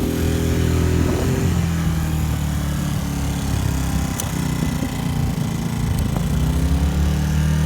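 Westinghouse inverter generator's engine running steadily under the heavy load of a 1600-watt heat gun, with a low, even hum whose pitch wavers slightly and rises a little near the end.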